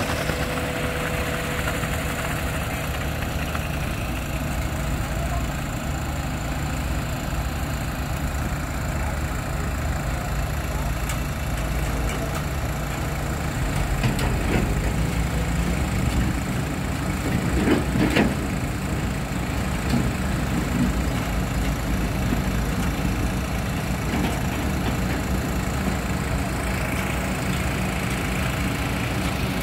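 Concrete mixer truck's diesel engine running steadily at a high idle while the drum turns to discharge concrete down the chute, with a few short knocks about halfway through.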